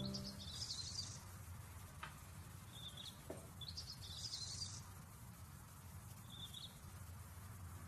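Faint birds chirping in short high phrases, four times, over a low steady hum, with the last of a music chord dying away at the very start.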